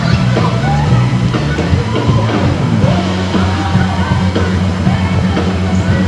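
Rock music playing, with a steady bass line under shifting melody.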